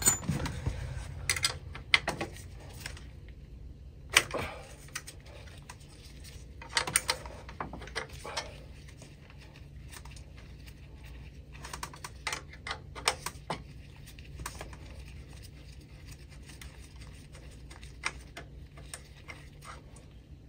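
Irregular metallic clicks, taps and short rattles of a hand tool working on an oil burner's fittings, in scattered clusters, over a low steady hum.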